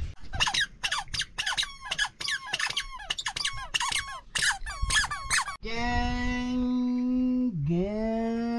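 A baby's toy squeaking: a quick run of high chirpy squeaks, about two or three a second, then a long held squealing tone that breaks briefly and sets in again, falling in pitch near the end.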